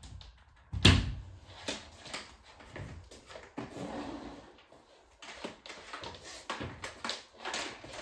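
Handling noise from a Bosch canister vacuum cleaner with its motor off: a sharp thump about a second in, the loudest sound, then irregular clicks, knocks and rustling as the hose and power cord are moved about.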